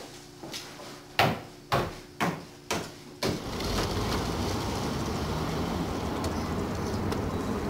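Five footsteps on a hard floor, about two a second, as someone walks off. They give way to a steady rush of wind noise on the microphone.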